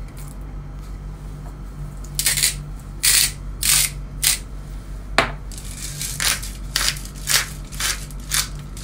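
Hand-twisted sea salt grinder crunching salt crystals: about a dozen short grinding strokes that start about two seconds in and come in quick uneven runs.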